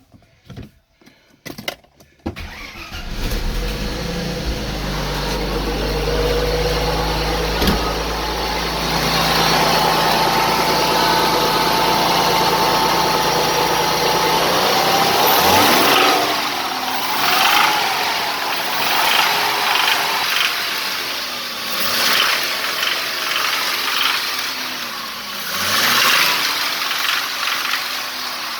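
Mercedes-Benz W124's 2.8-litre M104 inline-six is started about two seconds in and runs at a steady idle. In the second half it is revved in a series of short blips. The owner revs it to show a crackling noise from the intake manifold area that appears at 2500 rpm and above, cause not yet found.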